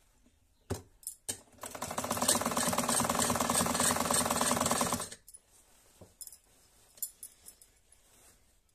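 A Modern-brand sewing machine stitching a seam in one steady run of about three and a half seconds, with a fast, even mechanical clatter. A few sharp clicks come just before the run and scattered small clicks after it as the cloth is handled.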